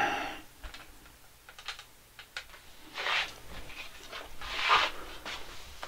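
Handling noises: scattered light clicks and taps, with two brief scraping rushes about three seconds and four and a half seconds in.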